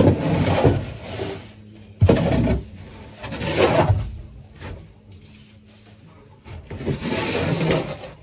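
Rake scraping old shavings and lime bedding across a wooden coop floor in about four rough strokes with short pauses between them.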